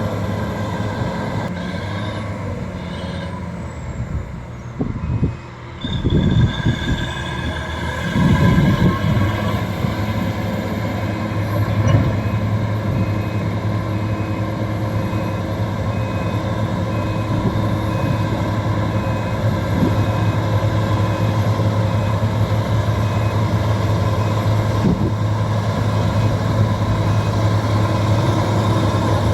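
Bulldozer's diesel engine running steadily under load. Its sound dips briefly about five seconds in, then picks up again, and a faint, evenly repeating beep runs from about six seconds on.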